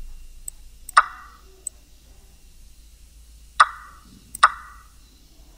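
Online chess site's piece-capture sound effect: three sharp clacks, about a second in, then twice close together near three and a half seconds, each one a piece being taken. A few faint high ticks come between them.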